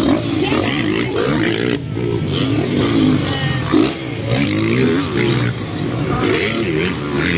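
Motocross dirt bike engines revving, their pitch rising and falling again and again as the bikes race over the jumps.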